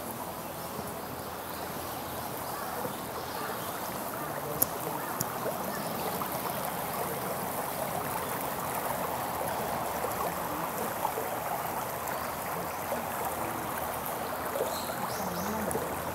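River water flowing steadily over its bed, a continuous rushing babble. A single sharp click stands out about four and a half seconds in.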